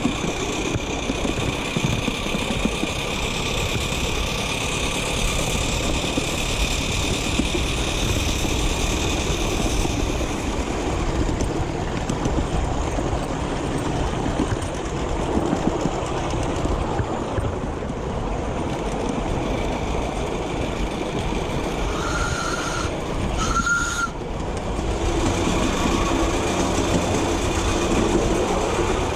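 Miniature steam train running along its track: a steady rumble and clatter of wheels on rail, with a high whine in the first third that fades out. Two short high tones come a little past two-thirds through.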